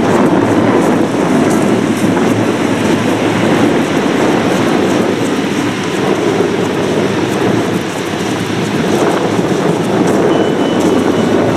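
Loud, steady rushing noise of the seashore: wind on the microphone and surf, swelling and easing only slightly.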